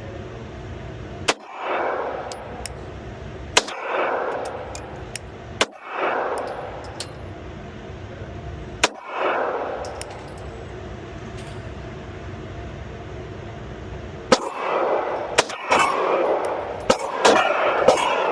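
9mm Glock 43X pistol firing: single shots a few seconds apart, then a quicker string of shots near the end, each crack followed by a short echoing ring of the range.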